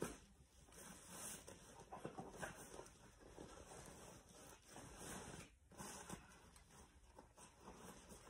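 Faint rustling and scuffing of a nylon carry bag and the folded camping chair's fabric as the chair is pushed into the bag, with a brief bump at the very start.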